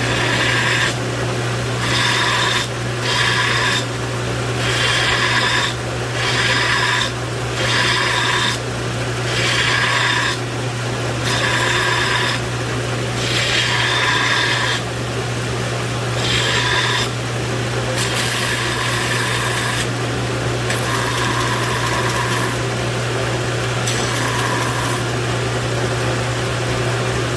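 Power grinder shaping a steel hoe blade: a steady motor hum with about fourteen separate grinding passes, each a second or two long.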